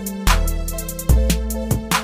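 Background music with a drum beat and deep bass.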